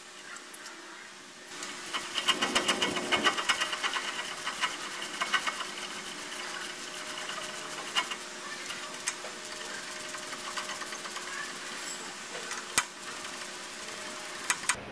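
Ratchet clicking rapidly as the brake caliper bolts are run in. It starts about two seconds in and thins out after a few seconds, with a few sharp metal knocks later.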